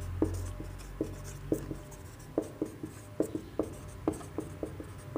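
Marker pen writing on a whiteboard: a run of short, irregular strokes and taps of the felt tip on the board as letters are formed.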